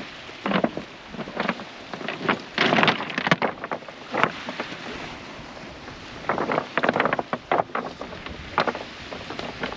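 Wind on the microphone and sea washing on a pebble shore, with irregular clicks and rattles, thickest about a third of the way in and again past the middle.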